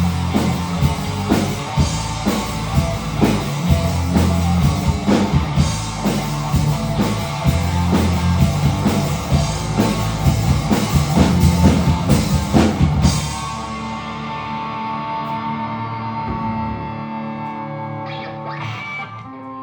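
Rock band playing live on guitar and drum kit in an instrumental passage. The drums stop abruptly about two-thirds of the way through, leaving held guitar notes ringing out and slowly fading as the song ends.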